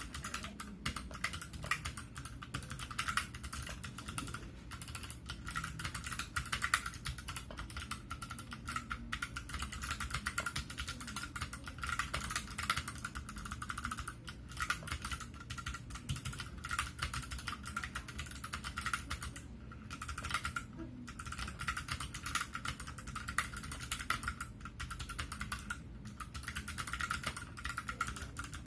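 Continuous typing on a Tada68 mechanical keyboard with clicky Kailh Box Pale Blue switches, PBT keycaps and an aluminium case: a fast, dense run of sharp key clicks, broken by a few brief pauses in the second half.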